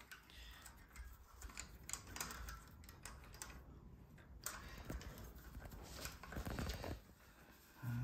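Irregular light clicks and rattles of a bicycle's quick-release skewer and its plastic end nut being handled and fitted through the front wheel hub.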